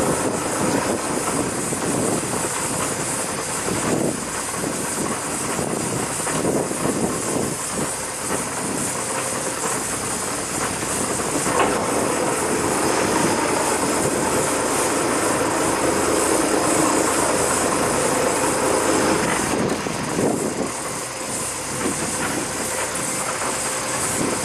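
Sport-fishing boat under way while trolling: a steady engine drone mixed with the rush of water along the hull.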